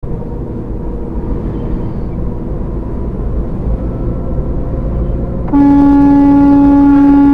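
Semi truck's engine and road noise heard in the cab at about 40 mph. About five and a half seconds in, a loud, steady single-pitched horn blast starts and is held through the end.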